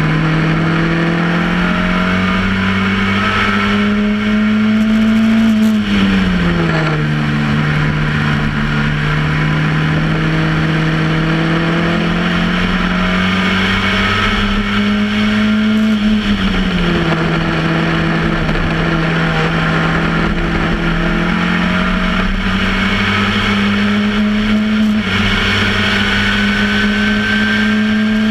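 Onboard sound of a Reynard Formula Ford 1600's 1.6-litre four-cylinder engine running hard. Its pitch climbs slowly as the car gathers speed. The pitch falls away quickly about six seconds in and again about sixteen seconds in, then climbs again.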